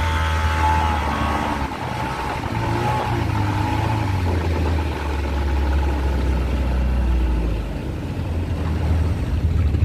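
A small boat's motor running under way, with a low steady hum that drops a little in pitch about halfway through.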